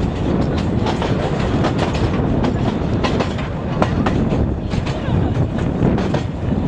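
Open-sided narrow-gauge railway carriage rolling along the track: a steady low rumble with irregular clicks and knocks of the wheels running over rail joints.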